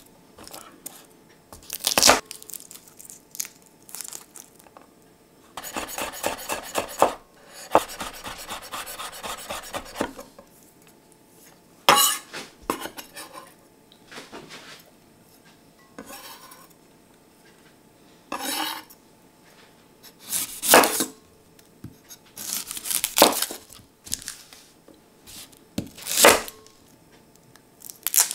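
Garlic cloves being chopped with a knife on a wooden cutting board. There are two runs of rapid, even knife strokes a few seconds in, and several single sharp knocks of the blade on the board spread through the rest.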